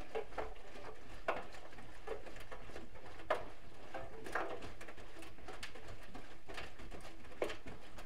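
Wet laundry tumbling in the water of a Bosch Exclusiv Maxx Comfort WFR160A front-loading washing machine's drum during the wash phase: irregular splashes and soft slaps, one or two a second, as the clothes are lifted and drop back into the water.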